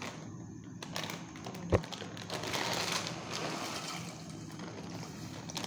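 A plastic bag of dry macaroni rustling as the pasta is poured into a pot of hot water, with one sharp knock nearly two seconds in.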